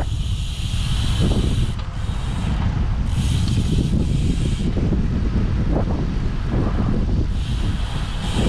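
Wind buffeting a camera microphone as a steady low rumble, with a high hiss that comes and goes several times.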